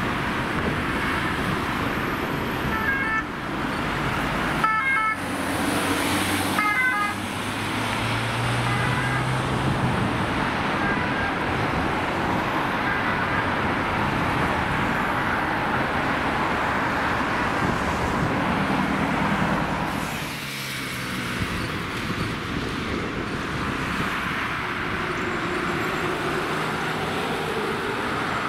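Road traffic with ambulances on emergency runs passing; short bursts of a stepped-tone siren sound a few seconds in, over steady engine and tyre noise.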